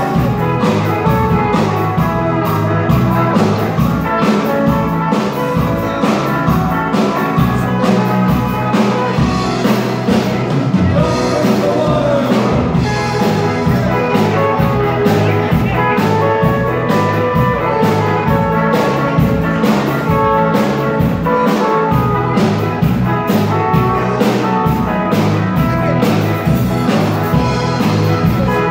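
Surf rock band playing live: electric guitars, bass guitar and a drum kit keeping a steady beat.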